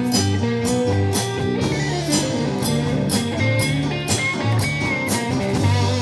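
Live rock-and-roll band playing an instrumental passage between verses: electric guitar over bass and a steady drum beat, with some long held high guitar notes in the middle.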